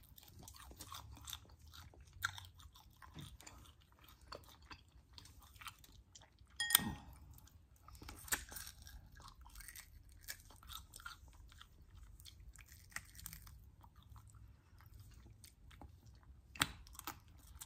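Close-up chewing and biting of crispy breaded fried chicken wings: many small crunches and mouth sounds, with a few louder crunches, one about seven seconds in and one near the end.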